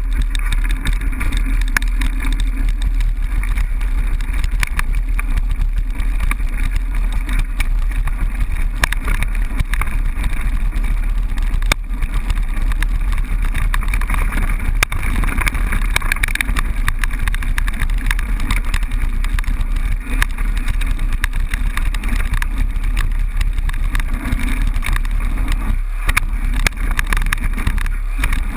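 Mountain bike descending a rocky dirt trail, heard through a handlebar-mounted GoPro: constant wind rumble on the microphone, with a steady clatter of small knocks and rattles as the tyres and bike run over stones.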